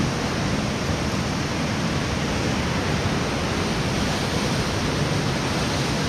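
Storm waves on the North Sea breaking against and over a stone pier wall, a steady dense rush of surf noise mixed with strong wind.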